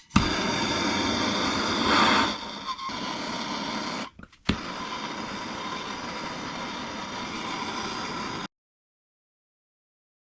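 Power tool, likely the impact gun, running on the bearing puller's forcing screw in two long runs split by a brief pause a little after four seconds. A single sharp crack comes between the runs as the bearing's inner race gives way and splits in two. The sound cuts off suddenly well before the end.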